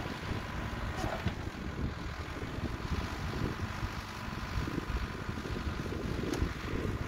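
Mecalac 12 MXT wheeled excavator's engine running as it moves its boom and bucket, under gusty wind buffeting on the microphone. Two short sharp clicks, about a second in and near the end.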